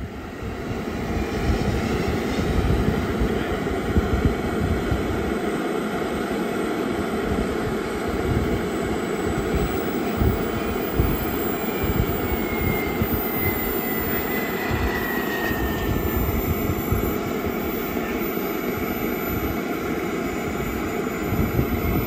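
Gas turbine of a radio-controlled F-86 Sabre jet model running steadily, a constant hiss with a faint whine that slides down in pitch about 12 to 16 seconds in. Wind buffets the microphone with irregular low rumbles.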